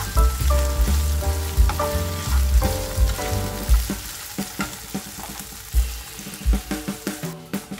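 Turkey strips sizzling in oil in a nonstick frying pan while being stirred with a wooden spatula, over background music with a bass line and melody. The sizzling cuts off near the end.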